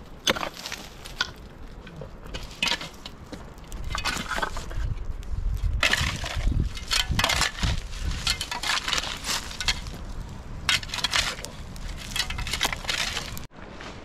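Irregular crunching and clinking knocks of hand construction work, material being broken and handled, busier and louder from a few seconds in, with a low rumble beneath; it cuts off suddenly near the end.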